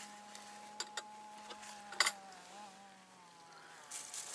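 Small electric water-circulation pump for a hot-water mat running with a steady hum of a few tones, its pitch sagging slightly about two seconds in. A few sharp clicks sound over it.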